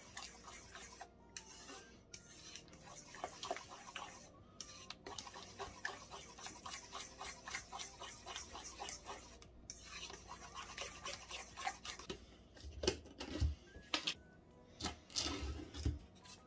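A metal spoon stirring and scraping through mashed banana and melted butter in a stainless steel mixing bowl, with many quick small clinks. Near the end come a few louder knocks and handling noises as the spoon is put down and a plastic yogurt tub is handled.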